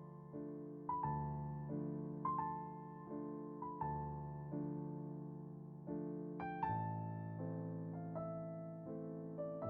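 Slow, soft piano music: single notes struck every second or so over held chords, with a change of chord about two-thirds of the way through.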